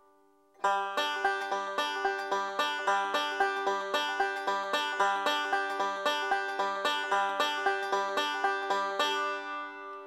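Five-string banjo picked in a steady forward roll on the open third, first and fifth strings, about four notes a second, the same few pitches repeating. The picking stops about a second before the end and the strings ring out.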